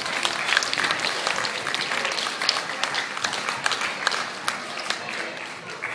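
Audience applauding: dense, irregular clapping that thins out and fades near the end.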